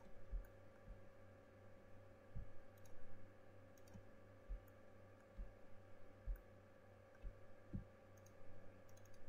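Computer mouse clicking a few times at irregular intervals, with soft low thumps, over a steady low hum.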